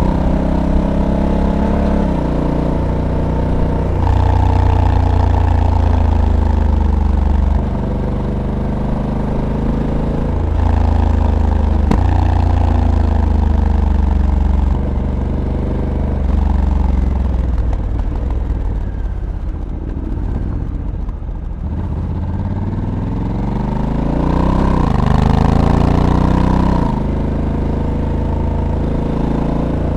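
Honda Africa Twin's 1084 cc parallel-twin engine heard onboard while riding, its pitch rising and falling with the throttle, with several sudden drops in pitch as the dual-clutch gearbox changes gear. Near the middle it winds down, then climbs again before another shift near the end.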